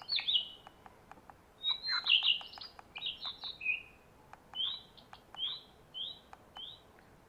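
Recorded bird chirps played through a portable bird-call lure speaker turned down low: two busy clusters of chirps, then single short chirps repeated about every 0.7 seconds, with faint clicks between.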